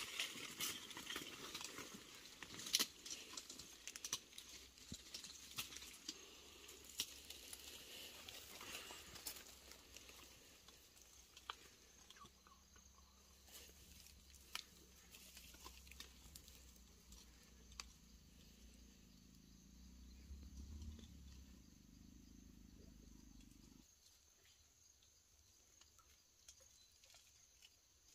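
Dry leaf litter and twigs crackling and rustling under a person crawling through forest undergrowth: dense for the first several seconds, then sparse snaps. A faint low hum sits underneath for a while and cuts off suddenly about four seconds before the end.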